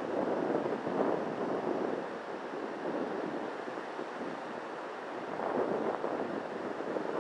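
Surf breaking on a sandy beach: a steady wash of noise that swells and eases, louder near the start and again about five and a half seconds in.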